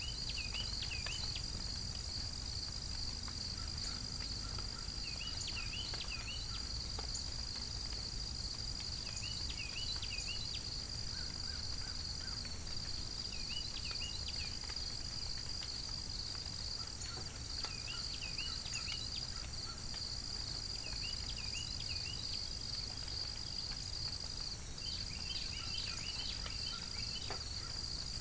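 Steady chorus of insects, crickets or katydids, a continuous high trill, with short groups of chirps recurring every few seconds over a low rumble.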